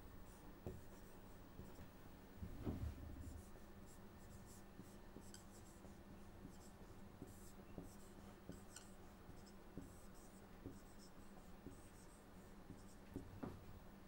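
Whiteboard marker squeaking and scratching faintly across a whiteboard in many short strokes as handwriting goes on, with a soft thump a little under three seconds in.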